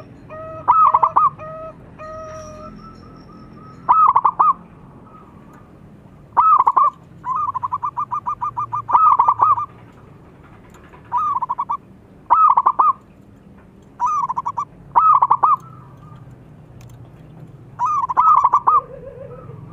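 Zebra dove (perkutut) singing its staccato cooing song: about nine short bursts of fast repeated notes, one every second or two, with a longer rolling run of notes about eight seconds in.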